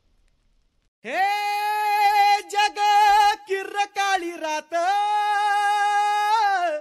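A solo singing voice opens a Marathi film song with long held notes that waver slightly, then a few short broken phrases, then another long note that slides down at the end. No instruments can be heard.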